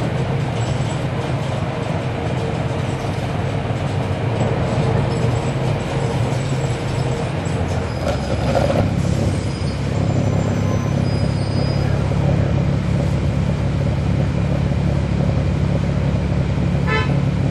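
Cummins ISL9 diesel engine of a NABI 40-SFW transit bus running, its low drone growing louder about ten seconds in. The ZF Ecolife six-speed automatic transmission is barely heard. A short run of clicks comes near the end.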